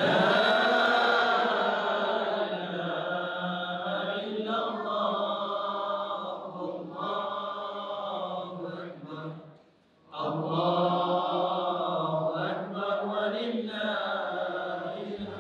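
A man's voice in Islamic devotional chanting: long melodic phrases that rise and fall, with a short breath pause about ten seconds in.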